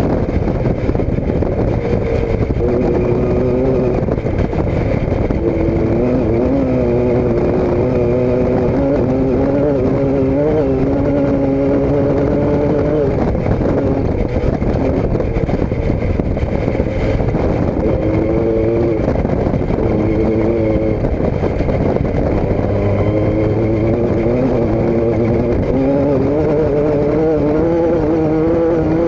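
Motor vehicle engine running under way over steady road and wind noise. The engine note wavers up and down with speed, fades for several seconds around the middle, then picks up again.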